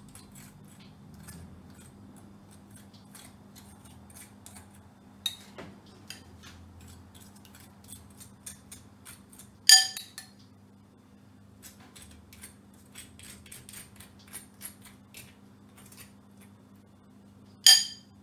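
Metal spoon tapping and scraping against a ceramic bowl and plate as tomato sauce is spooned out and spread: many light clicks, with two sharp, loud clinks, one about ten seconds in and one near the end.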